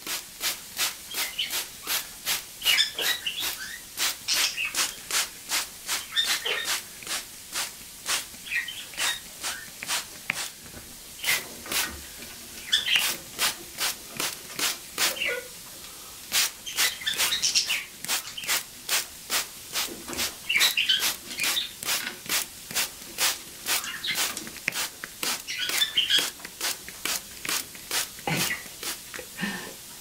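Water mister spraying in rapid, regular short hissing pulses, about three a second, stopping near the end. An Amazon parrot chirps now and then over it.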